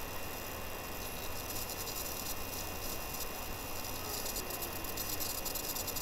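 Steady background hiss with a thin, constant high-pitched whine and a low hum underneath, the noise floor of a computer's recording setup, with faint scattered ticks later on.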